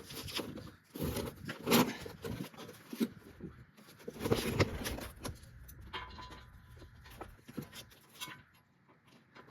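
Irregular metal clunks, scrapes and rattles of a heavy steel skid plate and its mounting hardware being handled and positioned under a pickup truck. The loudest knocks come about a second and a half and four and a half seconds in, with quieter clinks after.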